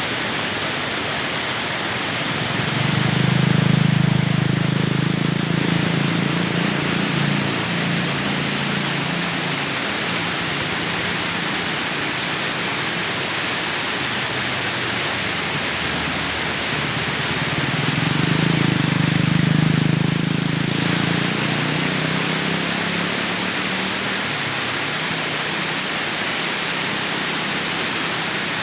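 River water rushing steadily. Twice, about three seconds in and again near the middle, a low engine hum swells up over it and fades away, like a motor vehicle passing.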